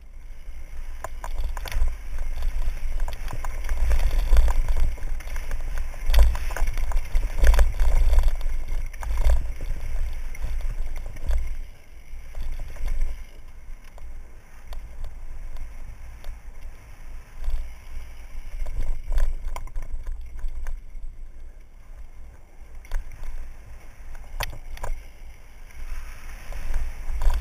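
Mountain bike descending a dirt singletrack at speed: heavy wind buffeting on a helmet camera's microphone, with tyres crunching over dry leaves and dirt, and sharp knocks and rattles of the bike over bumps, rising and falling with the terrain.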